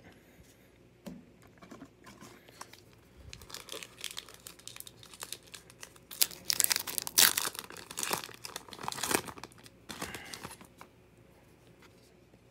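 Hands tearing open and crumpling a Topps Heritage baseball card pack wrapper: crinkling that starts a few seconds in, is loudest in the middle and dies away near the end.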